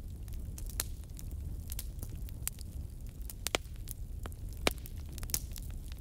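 Wood fire crackling: irregular sharp pops and snaps over a steady low rumble, with two louder pops a little past the middle.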